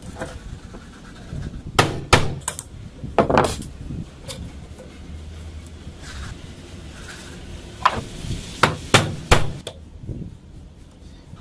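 Steel pieces knocking and clattering as they are handled on a workbench: a flat steel plate and a square steel tube set against a welded hex-nut jig. The sharp knocks come in two clusters, one a couple of seconds in and one near the end.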